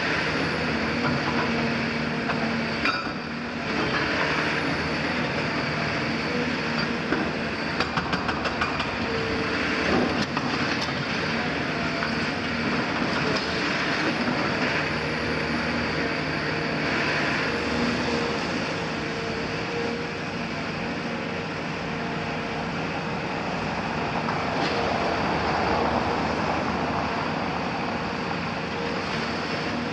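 Caterpillar 340F demolition excavator running steadily under load, its hydraulics working a grab against a brick wall, with a held engine and pump drone. Masonry and rubble clatter and crumble, with a quick run of sharp knocks around eight to ten seconds in.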